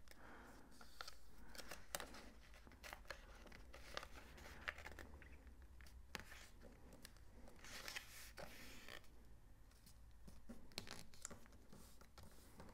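Faint rustling and crinkling of a paper foundation pattern being folded along its line and creased flat over fabric by hand, with scattered light clicks and taps.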